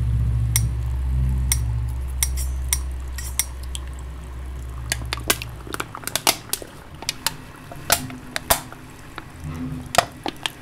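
Irregular sharp clinks, like glass and dishes being tapped, coming faster and thicker in the second half, over a low steady hum that stops about six seconds in.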